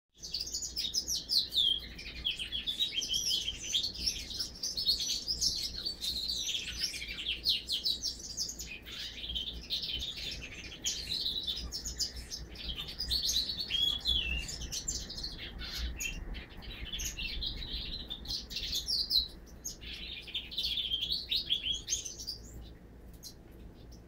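Siskin × canary hybrid singing: a long run of rapid twittering and trilling phrases with a few short pauses, falling quiet near the end.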